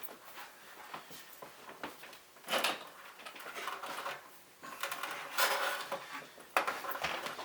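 A keyboard cable being pulled and moved out of the way on a desk: light knocks and clicks with two longer rustling scrapes, about two and a half and five seconds in.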